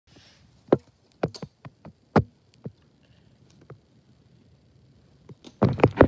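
Sharp, irregular clicks and knocks, about eight in the first four seconds, then a burst of rustling and knocking near the end.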